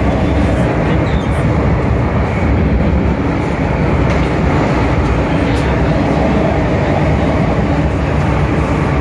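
An MTR Kwun Tong line M-train running between stations, heard from inside the carriage as a steady, loud rumble of wheels, rails and traction.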